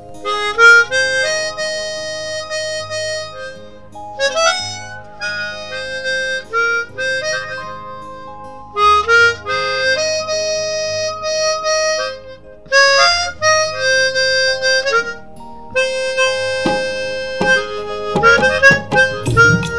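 Harmonica playing a melody of held notes that step from pitch to pitch.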